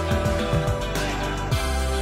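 Background music: sustained chords over low drum hits.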